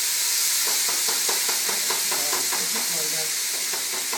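Rice frying in hot oil in a pan, a steady sizzle. From under a second in, a wooden spoon stirs through it in quick, even strokes.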